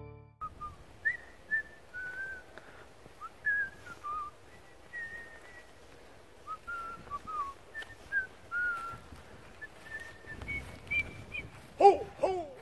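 Scattered short whistled notes, each sliding briefly up or down, come at irregular intervals over faint outdoor background noise. A louder, lower call with several pitches comes twice near the end.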